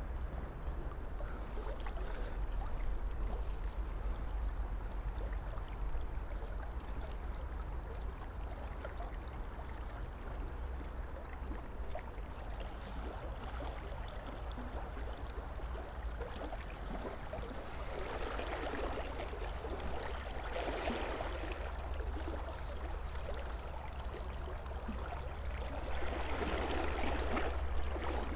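Shallow river running over stones: a steady rushing and rippling of water with a low rumble beneath it, swelling louder twice in the second half.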